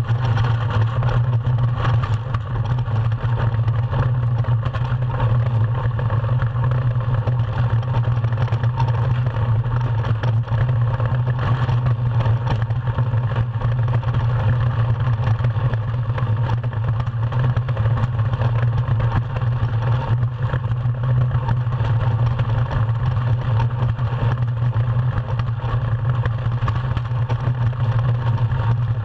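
Ice yacht sailing at speed: its runners rumbling steadily over the ice with a constant low hum, and wind rushing past.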